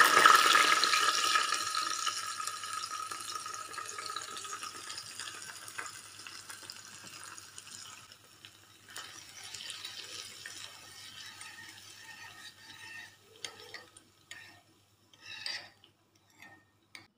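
Hot cooking oil poured over soy sauce, minced ginger and sliced scallions, sizzling loudly at first and dying away slowly over several seconds. Near the end come a few short clinks and scrapes of a spoon in the bowl.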